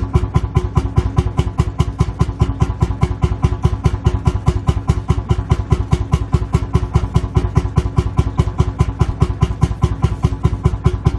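Lanz Bulldog tractor's single-cylinder two-stroke hot-bulb engine idling, with an even, steady beat of about six firing pulses a second.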